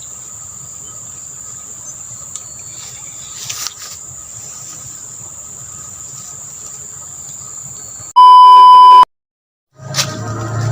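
Steady chorus of insects with a faint low rumble underneath. About eight seconds in it is cut by a loud, steady electronic beep lasting under a second, followed by a moment of dead silence and then music starting near the end.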